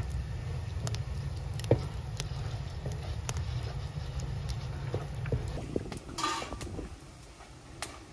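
Wood fire burning in the firebox of a clay stove, with irregular sharp crackles and pops over a low steady rumble.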